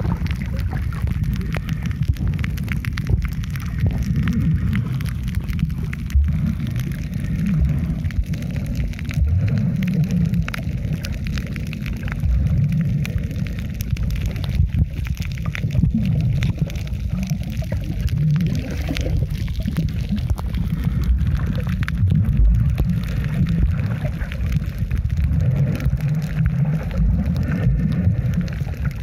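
Underwater sound from a camera held below the surface: a low, muffled rumble of water moving around it, with faint scattered clicks and crackles throughout.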